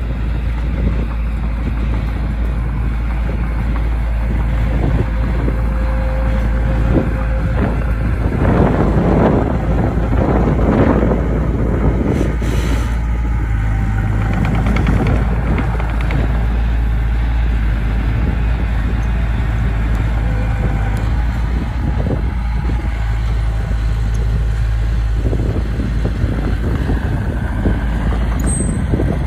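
Heavy diesel earthmoving machinery running steadily, with a louder, rougher stretch about nine to eleven seconds in.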